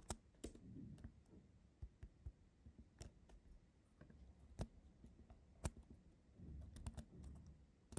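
Faint, irregular clicks of computer keys and mouse buttons, about nine spread over the stretch, against near-silent room tone.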